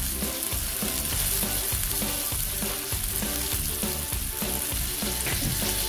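Ground pork patties sizzling steadily as they fry in oil in a nonstick pan, on their last side and cooking through to well done.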